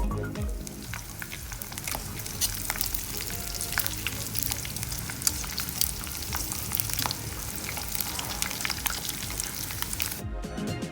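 Breaded pork chops frying in hot oil: a steady sizzle with many sharp crackles and pops.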